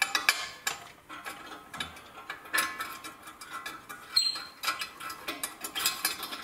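Irregular metallic clicks and clinks of hand tools and a steel exhaust pipe as the pipe is lifted up, hung and bolted in place.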